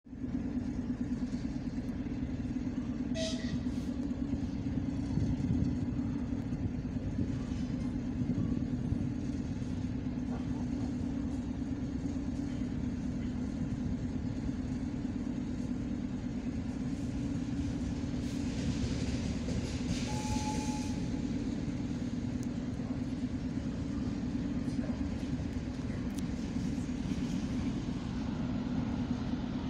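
Czech-built ChS8 electric locomotive running slowly on its own: a steady low hum over a rolling rumble, with a short hiss of air about three seconds in and a longer one around twenty seconds.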